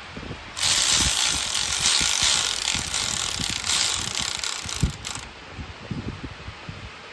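A loud, steady spray hiss starts about half a second in and cuts off suddenly after about four and a half seconds, over light clicks and knocks of metal parts being handled.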